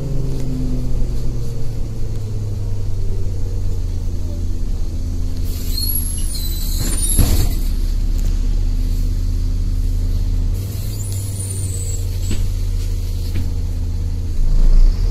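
Inside a moving city bus: the engine runs with a steady low drone as the bus drives along. High squeaks and creaks come from the cabin twice, with a knock among the first set.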